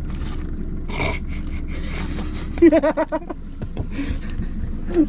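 A man's drawn-out, wavering call over a low steady rumble; the rumble stops about halfway through, as the call begins.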